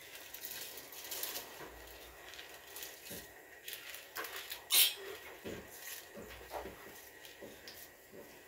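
Dry rice pouring from a plastic bowl into a pot of broth, a spatula scraping and tapping the bowl to push out the grains, with light pattering and scattered clicks. One sharper knock about five seconds in.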